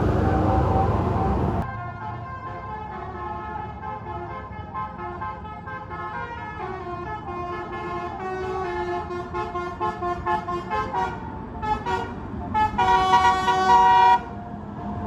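A bus's telolet horn, a multi-tone musical air horn, plays a tune in a run of steady notes that change pitch. It ends in a few short blasts and then a loud held chord that cuts off sharply. Before the tune, loud vehicle noise stops abruptly under two seconds in.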